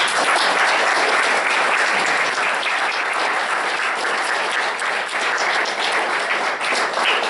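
Audience applauding, a dense and steady clapping from many hands.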